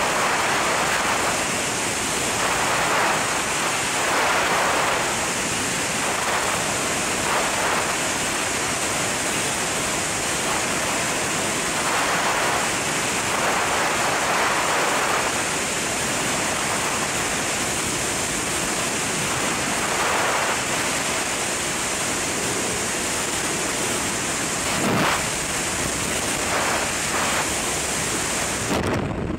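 Freefall wind blasting across a skydiver's helmet-mounted camera microphone: a loud, steady rushing that swells every second or two. There is a single sharp crack about 25 seconds in, and the high hiss drops away suddenly near the end.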